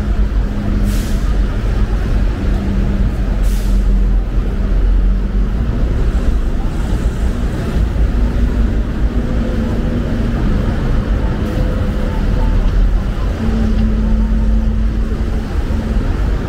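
Busy city street traffic: road vehicle engines running with a steady low rumble, and short hisses about one and three and a half seconds in, with a fainter one later.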